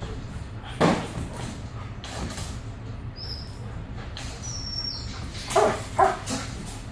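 Dogs barking in a kennel: one sharp bark about a second in and two more in quick succession near the end, over a steady low hum.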